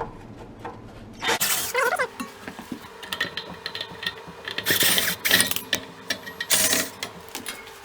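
Self-tapping screws being undone from the refrigerated display case's fan mount: short bursts of mechanical clicking and grinding from the tool, three times, over a faint steady hum.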